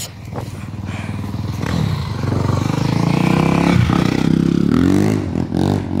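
A motor vehicle's engine passing on the street, growing louder from about a second in and loudest around the middle.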